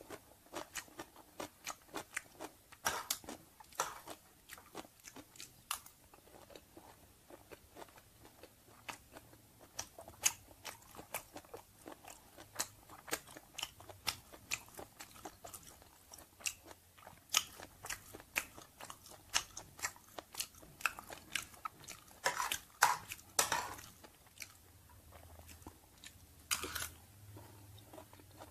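A person chewing and biting a mouthful of stir-fried chicken organs and rice close to a clip-on microphone: many quick wet clicks and smacks with a few crunches. The chewing gets louder and denser for a couple of seconds about three-quarters of the way in, and once more near the end.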